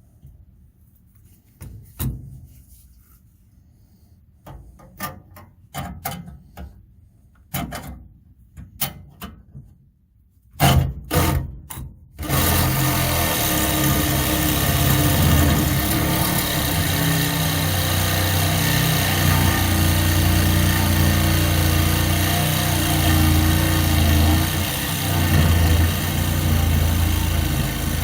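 Scattered metal taps and clanks, a few louder strikes, then about twelve seconds in a loud power tool starts up and runs steadily on.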